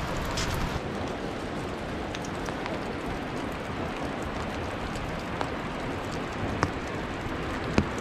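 Steady rush of falling water from the Uchan-Su waterfall, running high after days of rain, blended with rainfall. A few sharp ticks of drops land close by, about four times through the stretch.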